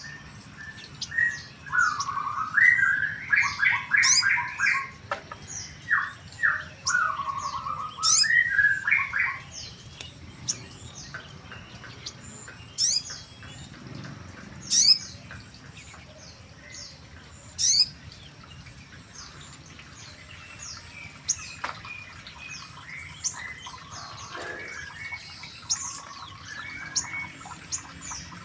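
Small birds singing and chirping: a burst of loud, quick warbled phrases in the first ten seconds or so, then scattered sharp high chirps every second or two.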